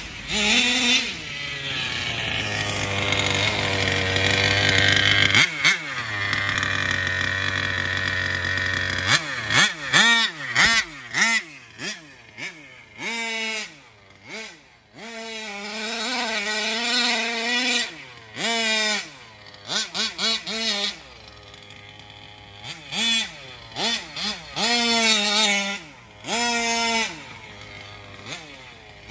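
Taylor 35cc two-stroke engine in an RC car, exhaust through an Olimat pipe. It first makes one long run with rising pitch to high revs, then gives repeated short bursts of throttle, dropping back to a steady idle between them.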